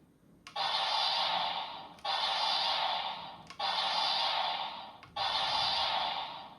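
Electronic sound effect played through the small speaker of a Bandai Premium DX Laser Sublimator toy: the same sound repeats four times, starting sharply about every second and a half and tailing off each time, in a loop.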